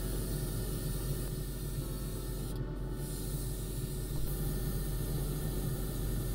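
Airbrush spraying paint in a steady hiss, stopping briefly about two and a half seconds in and then resuming, over a steady low hum.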